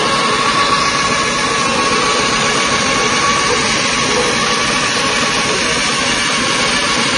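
Soybean dehulling and skin-separating machine running steadily under load as soybeans pour through it: a loud, even mechanical din with a faint steady whine.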